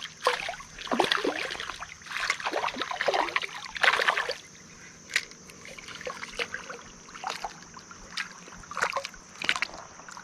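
Irregular water splashing and sloshing from a hooked fish thrashing at the surface as it is landed by hand, heaviest in the first few seconds and then settling into smaller splashes.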